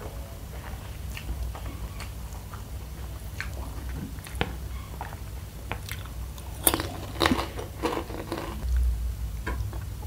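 Close-mic'd chewing of noodles with soft wet mouth clicks. About six and a half seconds in come several sharp crunches as a mouthful of crispy fried spicy macaroni is bitten and chewed.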